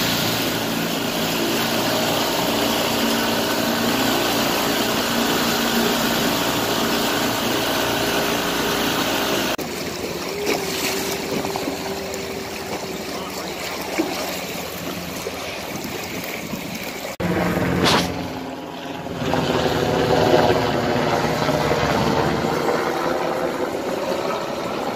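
A motorboat's engine running steadily, with wind and water rushing past, over several cut-together clips. In the last clip a helicopter flies overhead.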